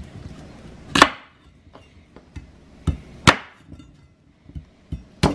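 Chef's knife chopping through a raw cassava root and knocking on the wooden cutting board: sharp knocks at uneven intervals, the loudest about a second in and just after three seconds in, with lighter taps between.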